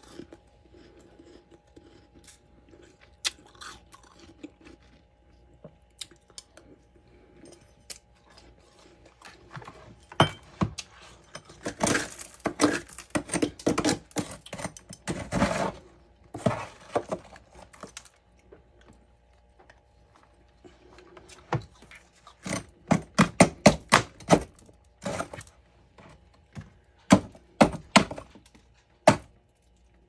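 Chunks of freezer frost being crunched and chewed, in bursts of quick, sharp crunches separated by quieter pauses.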